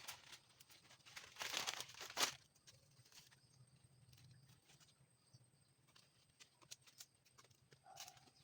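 Brief rustling and crackling of cut galangal stalks and leaves being handled, loudest for about a second from a second in and ending in a sharp snap, with a few faint clicks around it.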